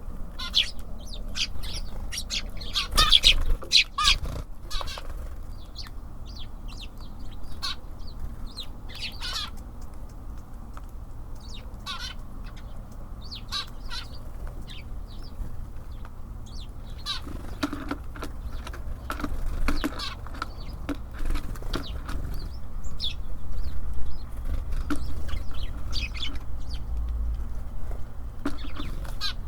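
Small songbirds at a feeder, tits and sparrows, giving many short high chirps and calls, with sharp taps and flutters, loudest about three seconds in and again near the end.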